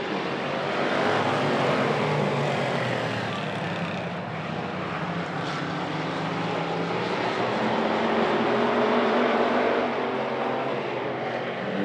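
A pack of hobby stock race cars' engines running at speed as the field passes, a continuous mixed drone of many engines. Some rise in pitch in the second half as the cars accelerate.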